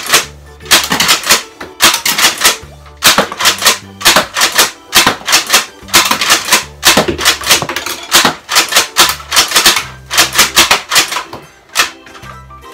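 Nerf Longstrike CS-6 spring blaster being primed and fired over and over: a quick run of loud plastic clacks from the bolt and spring, several a second, over background music with a steady bass line.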